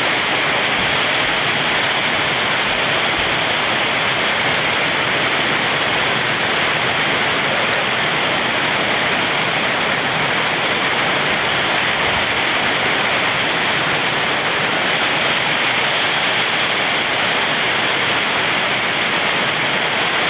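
Heavy rain falling steadily, an even wash of noise that neither builds nor fades.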